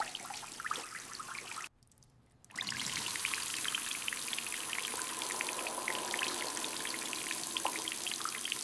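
Water running and splashing in a kitchen sink as vegetables are washed, with droplets pattering. It cuts out briefly about two seconds in, then runs on steadily.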